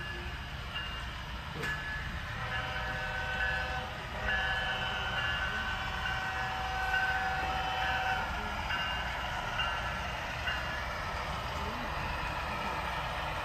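HO scale model diesel locomotives' sound decoders blowing the horn several times, the longest blast about four seconds in and lasting about four seconds, over the low engine rumble of the moving model freight train.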